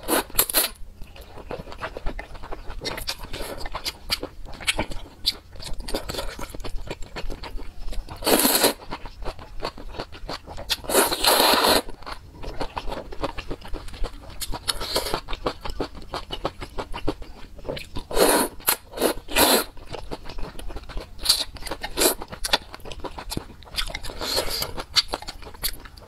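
Close-miked eating: noodles slurped from a bowl of noodle soup in several short, noisy bursts, with chewing and mouth sounds in between.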